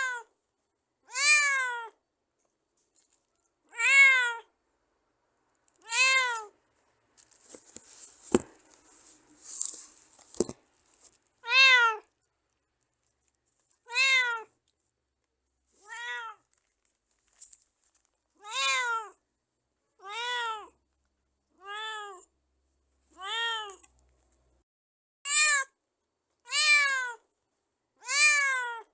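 Domestic cat meowing over and over, about a dozen separate meows, each rising then falling in pitch. The meows pause for a few seconds about a third of the way in, where there is faint scuffling and two sharp knocks.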